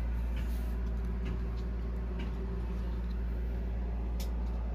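A steady low hum, with a few faint clicks and rustles as a refrigerator door is opened.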